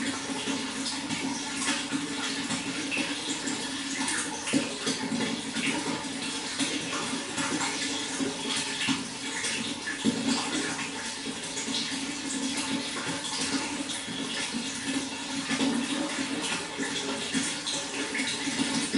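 Water flowing and splashing steadily, a continuous rush broken by many small splashes and gurgles.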